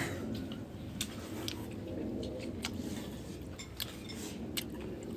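Tableware at a meal: a handful of light, scattered clicks and clinks of utensils against bowls and plates, over a low steady room murmur.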